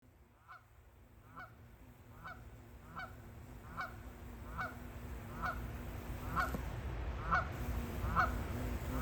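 Goose honking in a steady series, about one honk a second, growing louder.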